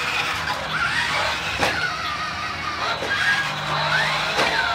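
Toy RC off-road truck driving over carpet, its small electric drive motor and gears whirring, while its built-in speaker plays a simulated engine sound that rises and falls in pitch again and again. A few sharp knocks stand out.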